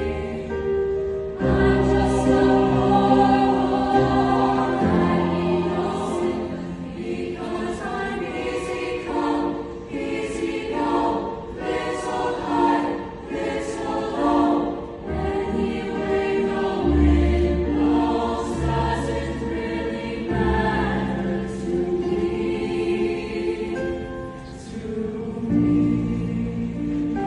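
Large high school show choir singing in full voice, with a live band's instrumental accompaniment under it: sustained bass notes shift every few seconds.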